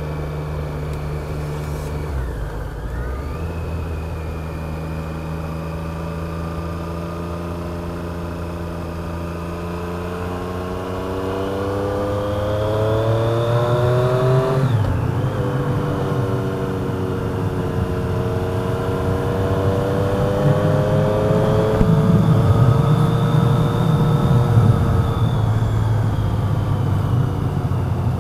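Triumph Street Triple RS three-cylinder engine under way, heard from a helmet camera over steady road and wind noise. The revs dip briefly about two seconds in. Then they climb steadily and drop sharply midway, as at a gear change, before holding and rising again, louder in the second half.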